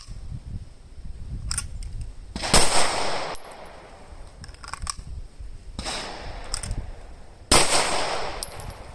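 Two loud pistol shots from a SIG Sauer P320 X Carry, about five seconds apart, each with a short echo. Fainter sharp cracks come between them.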